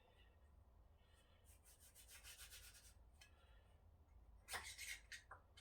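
Faint scraping and rubbing of hand work on the old power hacksaw's metal parts, in two spells: a rapid run of strokes in the middle and a shorter, louder cluster near the end.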